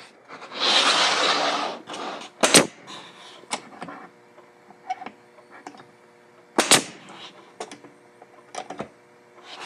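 Pneumatic nail gun firing 2-inch nails into glued MDF jig parts: two sharp shots about four seconds apart, the first about two and a half seconds in, with a few fainter clicks near the end. A rushing, scraping noise lasts about a second near the start.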